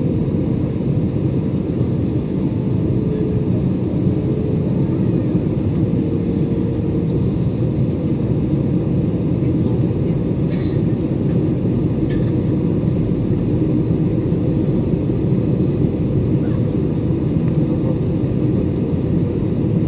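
Steady low roar of an Airbus A320-family airliner heard from inside the cabin at a window seat: engine and airflow noise in flight. A faint steady hum rides on it and fades out about seven seconds in.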